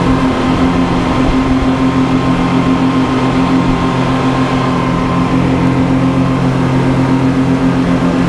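Several Honda 250 hp V6 outboard motors on a speedboat running at steady high speed: a constant, even-pitched engine drone over the rush of wind and wake water.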